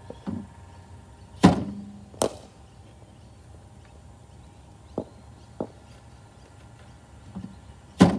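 Cricket bowling machine firing a ball with a loud thump, followed by a brief hum, and under a second later the softer crack of the bat hitting the ball. A fainter pair of knocks comes around the middle, and the machine fires again near the end.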